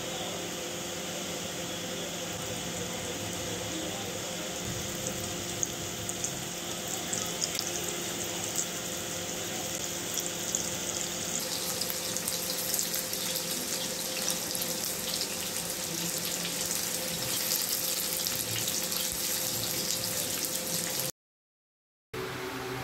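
Flour-coated chicken pieces shallow-frying in oil in a pan, sizzling with scattered pops that turn into dense crackling about halfway through, over a steady low hum. The sound drops out for about a second near the end.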